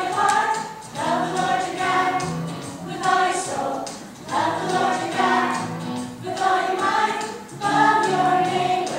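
A children's choir singing a song together in short phrases with held notes and brief breaks between lines.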